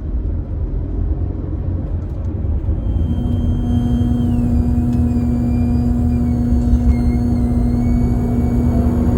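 Car on the move, heard inside the cabin: a steady low rumble of engine and road noise. About three seconds in, a steady hum with thin high tones joins it.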